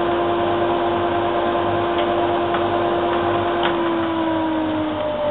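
Bandsaw and dust extractor running with a steady hum and a few light ticks. About four seconds in, a motor is switched off and its hum starts falling in pitch as it spins down.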